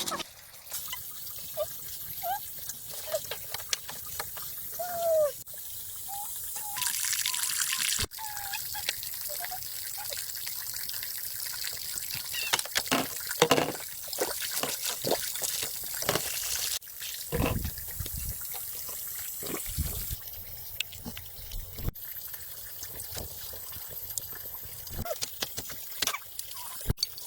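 Water trickling and splashing, with scattered clicks and a few sharp knocks.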